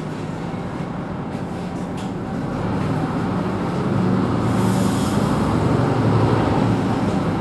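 Mercedes-Benz Citaro C2 city bus running, a steady low engine and road drone that grows louder from about two and a half seconds in as the bus speeds up, with a single click about two seconds in and a short hiss around the middle.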